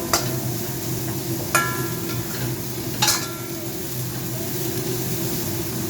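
Chicken legs and onion stir-frying in hot oil in a pan, sizzling steadily. A metal spatula clinks against the pan three times.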